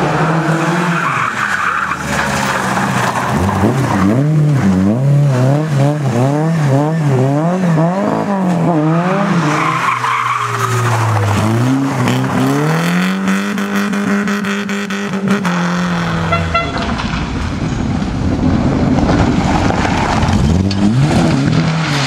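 Lada 2107 rally cars' four-cylinder engines revving hard, the pitch swinging rapidly up and down as the throttle is worked through the corners, with tyres skidding. About two-thirds of the way in, one engine climbs to a high held note, and the sound then turns into a rougher, noisier rushing with less clear engine pitch.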